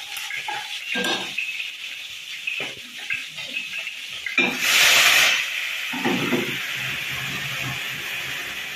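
Chopsticks knock a few times against a hot frying pan over a faint sizzle. About four seconds in, the contents of a small dish are tipped into the hot oil and it bursts into loud sizzling for about a second, then settles into a steady sizzle as the pan flares up.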